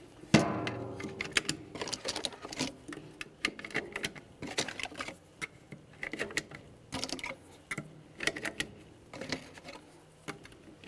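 12-gauge shotgun shells being pressed one at a time into a double-stack shotgun box magazine: a run of irregular clicks and snaps as each shell seats under the feed lips, with a heavier knock about a third of a second in.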